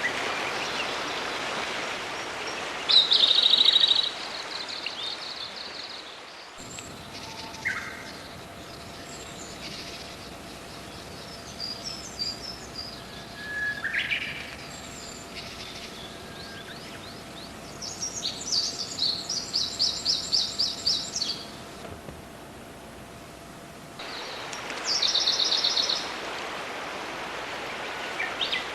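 Small songbirds singing and calling: several separate high trills and chirps, the longest a rapid trill of about twenty notes lasting around three seconds, over a steady rushing hiss that changes abruptly twice, as if recordings were spliced together.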